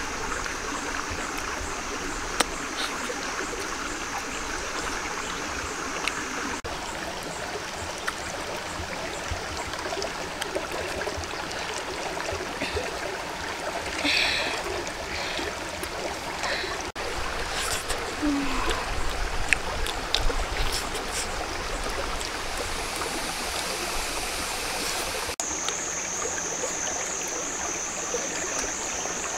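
Steady rush of running water from a stream over rocks. A thin, high, steady tone sits above it at the start and returns, louder, near the end.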